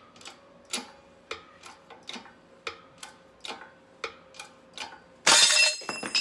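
Hydraulic bottle jack being pumped to press a ball joint in, each handle stroke giving a sharp click about twice a second. About five seconds in, a loud metallic clatter.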